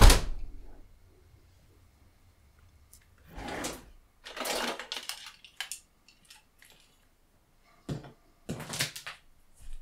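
Household rummaging sounds: a sharp bang at the start, then drawers sliding open and shut several times with a few small clicks and clatters.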